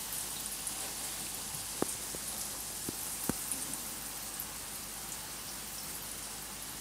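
Steady fine fizzing and crackling of aquarium air bubbles and water at the surface, with a few light clicks about two and three seconds in.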